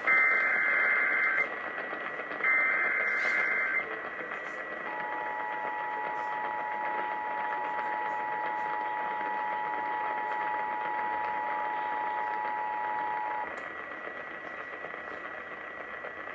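Emergency Alert System SAME header data bursts, two buzzing digital bursts of about a second and a half each, heard over a radio broadcast. After a short pause comes the EAS two-tone attention signal, held steady for about eight seconds before it stops. Radio hiss with a faint steady high whine and scattered faint clicks runs underneath.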